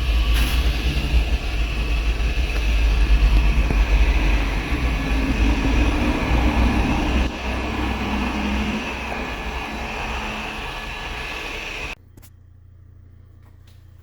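Car engine running, loud and steady with a heavy low rumble, swelling a little a few seconds in, then stopping suddenly about twelve seconds in.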